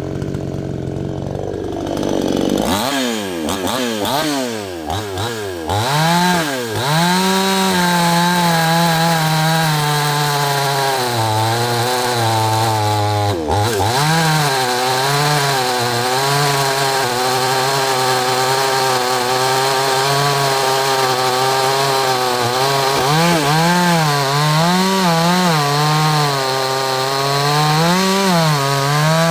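Neotec NS862 62cc two-stroke chainsaw revving in short blips for the first few seconds, then held at full throttle cutting through a wood round, its pitch dipping briefly about halfway and wavering as it bogs and recovers near the end.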